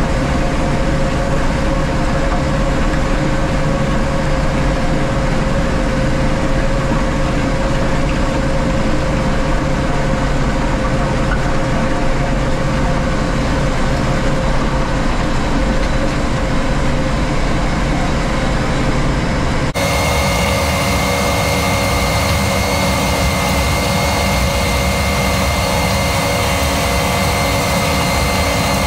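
Kubota diesel engine running steadily under load while grading a dirt road. About two-thirds of the way in, the sound changes abruptly and a steady higher-pitched whine joins the engine.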